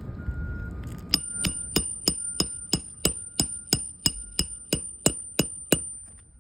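Hammer driving a roofing nail through a shingle: about fifteen quick strikes, roughly three a second, each with a bright metallic ring.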